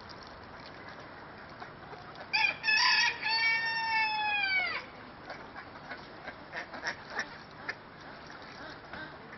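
A rooster crowing once, about two seconds in: a few short notes, then a long drawn-out note that falls away at the end. Faint scattered clicks follow over a steady low background.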